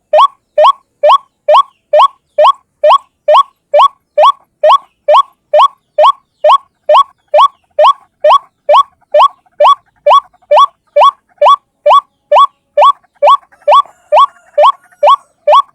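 White-breasted waterhen (ruak-ruak) call, a lure recording: short rising notes repeated evenly at about two a second without a break.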